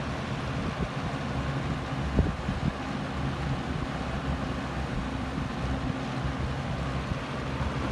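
1984 Lakewood P-223/M 20-inch box fan running steadily on medium speed: a rush of moving air over a low motor hum, with a single short knock about two seconds in.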